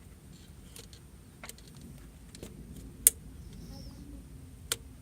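A few sharp clicks and knocks, the loudest about three seconds in and another near the end, from a plastic coolant-hose quick-connect fitting being worked onto a T connector.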